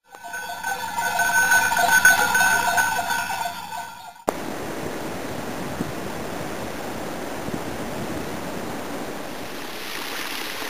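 A bell-like ringing of several steady tones for about four seconds, fading and then cut off abruptly. After that comes a steady rush of water trickling and splashing down a rock face in a small mountain waterfall, a little brighter near the end.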